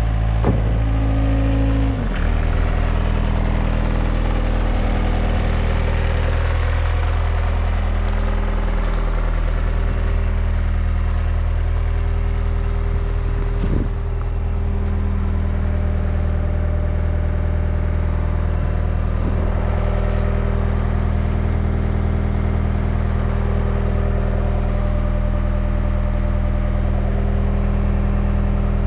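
Deere 320G skid steer's diesel engine running steadily, its speed dropping to a lower steady note about two seconds in, with a few brief knocks along the way.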